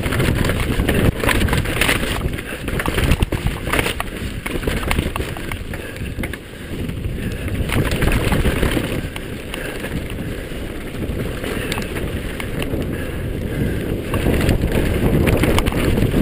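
Wind buffeting the microphone as a downhill mountain bike descends a rocky trail, the bike rattling, with sharp knocks as the tyres hit rocks, most frequent in the first few seconds.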